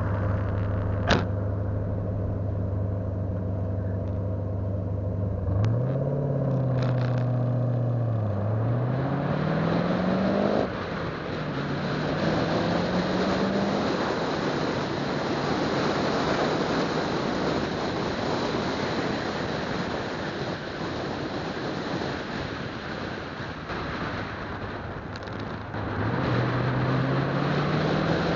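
Car engine idling steadily, with a sharp click about a second in, then pulling away with a rising engine note and an upshift about ten seconds in. It settles into cruising with steady road and wind noise, and near the end the engine note climbs again as the car accelerates.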